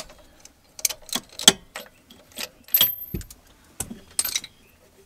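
Ratchet and 5/8-inch spark plug socket on an extension, clicking and clattering in short irregular bursts of metal clicks as the spark plug is loosened.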